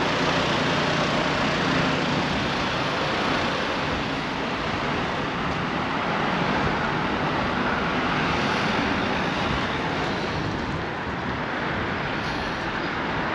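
Road traffic: cars driving past on the street, a steady noise of tyres and engines.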